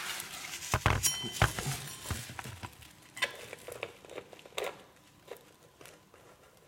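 Metal putty knife scraping and ticking lightly as it smooths a bead of sealant along a threshold bar. A few knocks and a short metallic clink come about a second in, and the small scrapes thin out toward the end.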